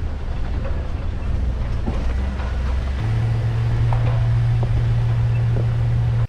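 A motor running with a loud, steady low hum that steps up to a higher pitch about three seconds in, with scattered clicks and knocks over it.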